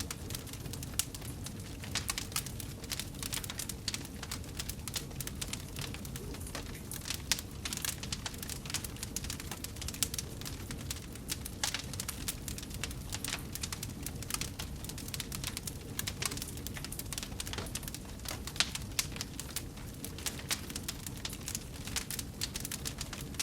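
Wood fire crackling in a fireplace: frequent irregular sharp snaps and pops over a low steady rumble of the flames.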